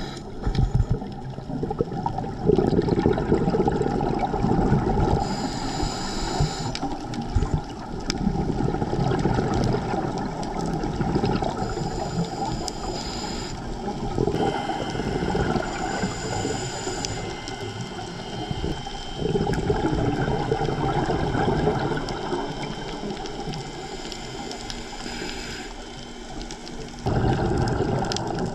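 Muffled underwater bubbling and gurgling from a scuba diver's exhaled air, rising and falling in surges, with a brief higher hiss several times.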